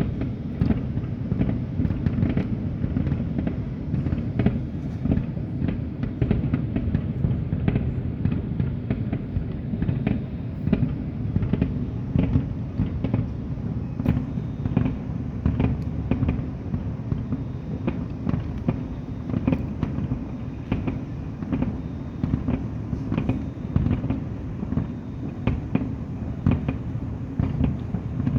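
Fireworks display: a dense, unbroken barrage of bangs, many in quick succession, over a heavy low rumble.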